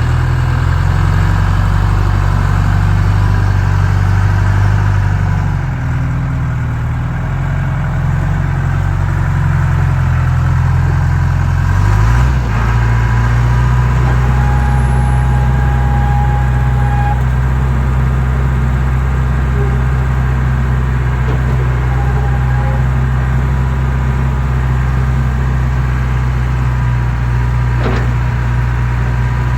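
John Deere 310E backhoe's diesel engine running. Its engine note shifts about twelve seconds in, then holds steady.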